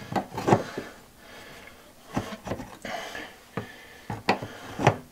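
A series of short, sharp plastic clicks and knocks, about nine, unevenly spaced. They come from a white corrugated plastic drain pipe being handled and pushed into its black fitting in the floor.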